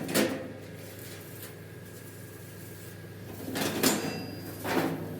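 Sharp knocks: one near the start, a few together about three and a half seconds in and another near the end, over a steady low hum.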